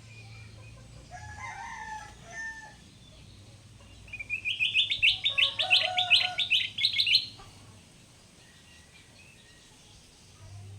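Kutilang emas bulbul calling: a few soft short notes, then about halfway through a loud, rapid chattering run of sharp repeated notes lasting about three seconds. A faint steady hum sits underneath.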